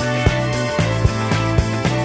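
Outro music with a steady beat of about two strokes a second over held bass notes.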